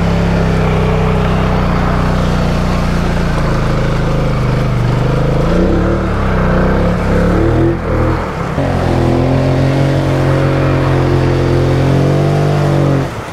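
2019 Polaris Sportsman 850 High Lifter ATV's 850 cc twin-cylinder engine pulling under load through deep muddy floodwater. It runs steady, its pitch wavers and dips about six to eight seconds in, then holds steady again and falls off near the end.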